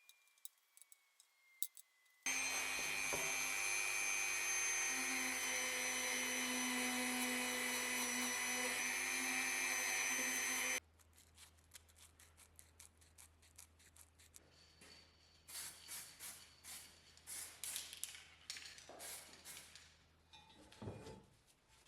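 A power tool running steadily for about eight seconds, starting and stopping abruptly, followed by scattered rubbing and clicking of parts being handled.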